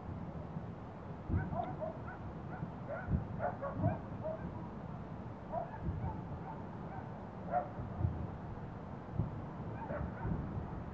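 Dogs barking and yelping over and over, with short dull thuds every second or two.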